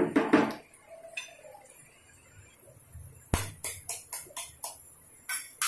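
An egg tapped against a knife blade to crack its shell: one sharp knock a little past halfway, then a quick run of about eight lighter taps.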